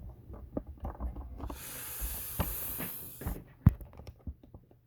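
Handling noise: scattered light clicks and taps, a hiss lasting about two seconds in the middle, and one sharp knock a little before the end.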